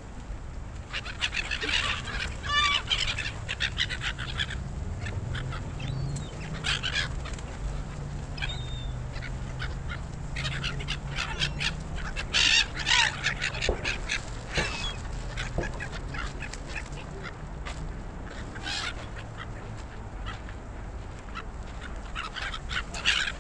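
A flock of gulls calling: harsh squawks and cries from several birds at once, coming in bursts, loudest about a quarter of the way in, around the middle and near the end. A low steady rumble runs underneath.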